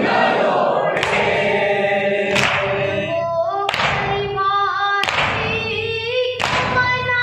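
A noha (Urdu mourning lament) sung through a microphone by a boy's voice with others joining in. Matam, mourners striking their chests in unison, gives a sharp thud about every 1.3 seconds, five times, keeping time with the lament.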